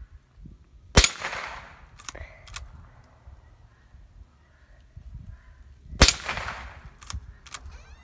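Two shots from a Winchester 9422 lever-action .22 LR rifle, about five seconds apart, each trailing off in an echo. After each shot come two sharp clicks about half a second apart as the lever is worked open and shut to eject the case and chamber the next round.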